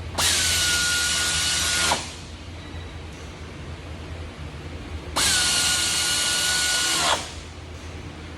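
A handheld power drill runs in two bursts of about two seconds each, the second starting about five seconds in. Each burst has a steady whine that winds down when the trigger is released.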